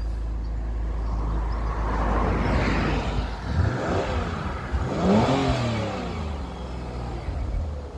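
MG ZT-T 180's 2.5-litre V6 engine running and revved twice in quick succession around the middle, the pitch rising and falling back each time. It runs smoothly, its misfire cured with new ignition coils and spark plugs.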